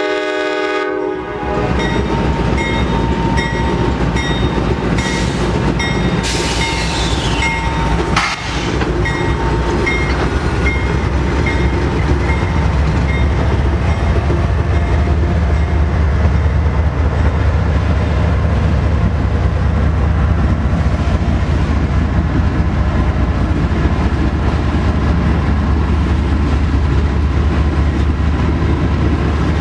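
A freight train horn chord cuts off about a second in. Two Norfolk Southern diesel locomotives then pass close with their engines running and a bell ringing, followed by loaded autorack cars rolling by with a steady rumble and wheel clatter.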